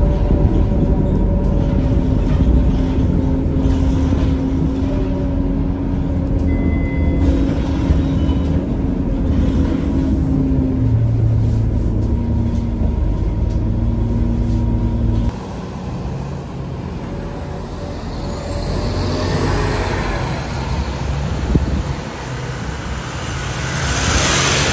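Scania K230UB single-decker bus heard from inside the cabin while under way: the engine runs with a steady drone and a held whine that shifts in pitch about eleven seconds in. About fifteen seconds in the sound drops suddenly to quieter road traffic, which swells louder near the end.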